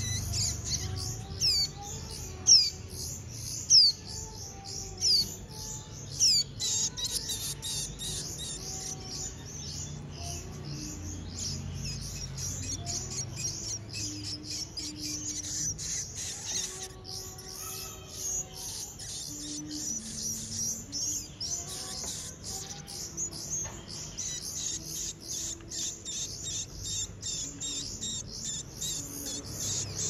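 Nestling songbirds begging for food: a dense run of rapid, high-pitched cheeps, with several loud downward-sliding calls in the first few seconds. Soft music plays underneath.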